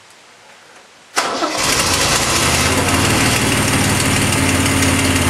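1969 MGC's 3-litre inline-six engine starting about a second in and settling into a steady idle, freshly re-ringed after a piston ring job.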